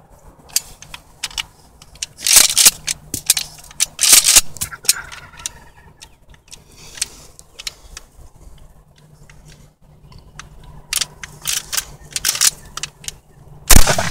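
Mossberg 835 12-gauge pump-action shotgun: several groups of sharp metallic clicks and clacks from shells misfiring and the slide being worked to clear them. Near the end comes one loud shotgun blast.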